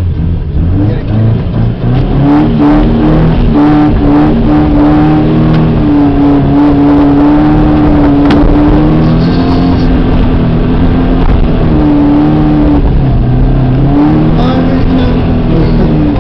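Car engine revved hard through fast donuts in snow. The engine pitch climbs and holds high for several seconds, falls back about two-thirds of the way in, then climbs again.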